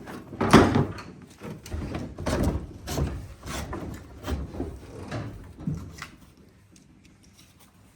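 Irregular knocks and thumps on a fibreglass sailboat deck and hull as the deck is worked loose, the loudest about half a second in, dying away in the last two seconds.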